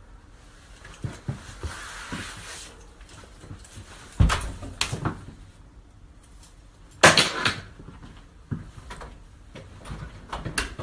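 Knocks and bangs in a small room, with smaller clicks and a rustling hiss between them; two loud bangs stand out, about four and seven seconds in.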